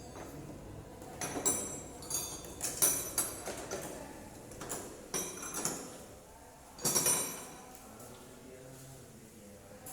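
Metal hand tools and motorcycle engine parts clinking and knocking together, in four or so short clusters of sharp metallic clinks with a brief ring. The loudest come about three seconds in and about seven seconds in.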